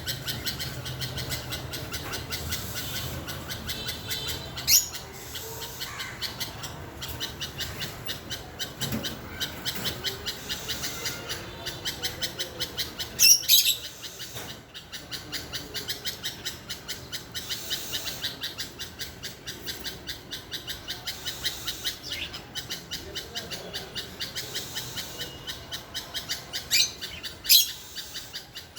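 Oriental magpie-robins and bulbuls calling: a steady run of quick, repeated chirps, broken by a few loud, sharp calls rising in pitch, about five seconds in, around the middle, and twice near the end.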